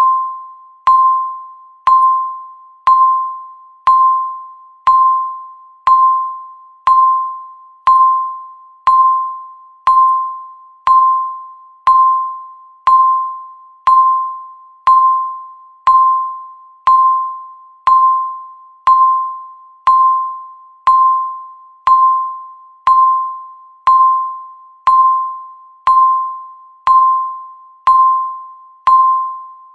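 Countdown timer beeping once a second: a single electronic beep on one steady mid pitch, each starting sharply and fading quickly, in an even rhythm.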